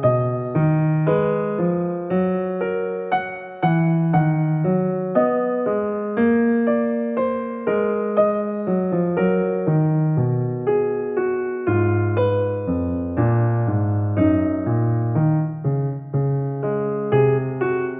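Background piano music: a slow melody of struck keyboard notes, each fading away, with deeper bass notes coming in about twelve seconds in.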